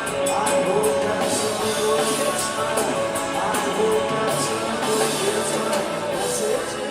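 Rock music from a band: electric guitar over drums with steady cymbal hits, and a voice singing in places.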